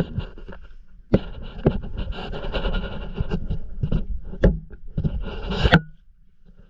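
Handling noise on the camera: a run of sharp knocks and rubbing as the camera and its mount are moved by hand, loudest just before six seconds in, then falling quiet.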